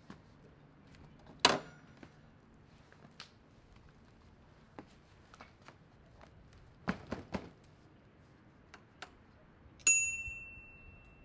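Scattered knocks and clicks from a fat-tire e-bike being handled and mounted, the loudest a thunk about one and a half seconds in. Near the end comes one sharp, bell-like ding that rings on and fades over about a second.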